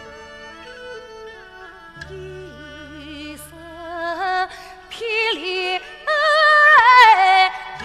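Yue opera singing: a woman sings a male role in a long, drawn-out melodic line with wide vibrato, accompanied by a traditional Chinese orchestra. The voice enters quietly a couple of seconds in and swells to its loudest near the end.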